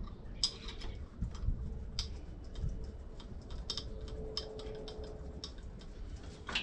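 Irregular light clicks and taps of hand tools and loose parts being handled in a diesel truck's engine bay during a water pump replacement.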